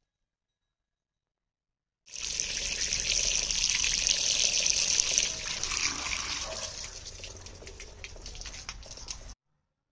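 A stream of running water splashing over freshly picked guavas in a plastic basket and over a hand as they are rinsed. It starts about two seconds in, is strongest at first, eases off after a few seconds, and cuts off suddenly near the end.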